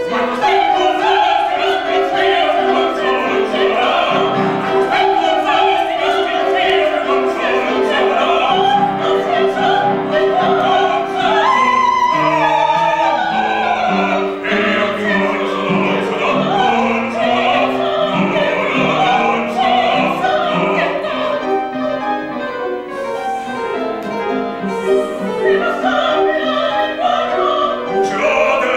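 Operatic singing with piano accompaniment, the piano keeping up a quick run of repeated notes under the voice.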